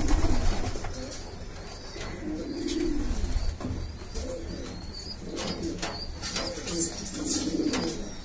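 Pigeons cooing in several low hummed notes, with a few short wing flutters and scuffles from a squab being fed by its parent.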